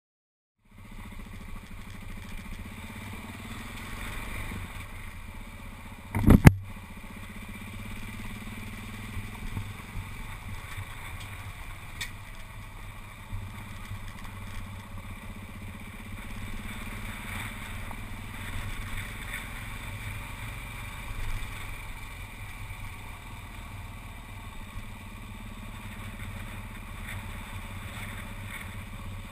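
Motorcycle running steadily as it is ridden along a gravel track, with tyre and wind noise. A single loud knock comes about six seconds in.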